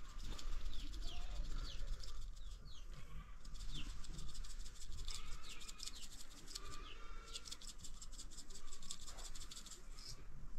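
Small birds chirping, many short falling calls, with stretches of rapid high ticking and a steady low rumble underneath.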